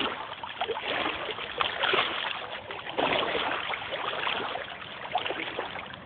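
Water splashing and sloshing close to the microphone, coming in repeated surges about once a second.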